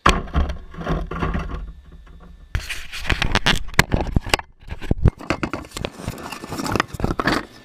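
Angle grinder grinding down welds on a steel frame: uneven scraping passes with sharp knocks, dropping out briefly about two and a half seconds in and again near five seconds.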